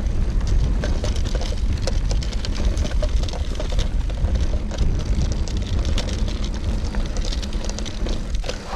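Wind rumbling on the microphone while a hardtail mountain bike rolls over a rough gravel track, with tyre crunch and frequent clicks and rattles from the bike.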